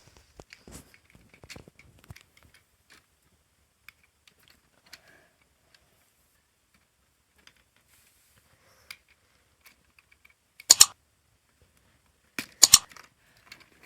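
Parts of a cyborg hand kit being handled and fitted together: scattered light clicks and taps, then two loud bursts of sharp clicks, one about eleven seconds in and one near the end.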